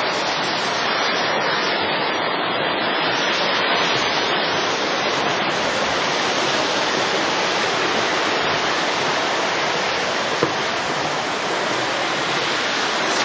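Rushing river water flowing fast below a footbridge, a steady loud roar of water with no let-up.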